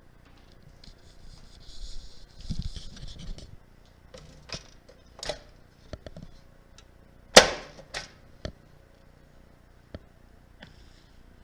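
Mechanical clicks and knocks from a 1956 Smith Corona Clipper portable typewriter being handled and worked, after a rustling, sliding sound in the first few seconds. About half a dozen separate clacks follow, with one much louder sharp clack past the middle.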